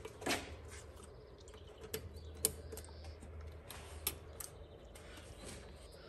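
Blue spark plug lead boots being pushed and clicked onto the terminals of a Mazda RX-7's trailing ignition coils: a few scattered light clicks and taps, the loudest about two and a half seconds in, over a faint low hum.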